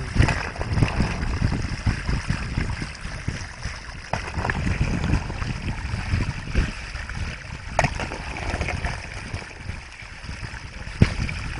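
Water sloshing and trickling, with a couple of sharp clicks later on.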